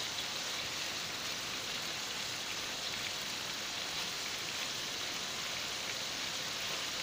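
Steaks sizzling steadily in hot oil in a frying pan.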